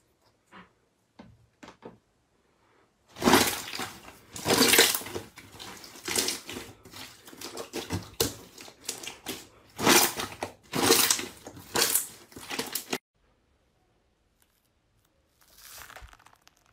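Slime stretched and squeezed by hand, crackling and popping in dense bursts for about ten seconds after a few soft clicks. Near the end comes a softer crunching as a hand presses into foam-bead slime.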